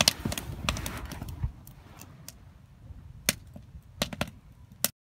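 Wood fire crackling, with irregular sharp pops and snaps, the sound stopping abruptly near the end.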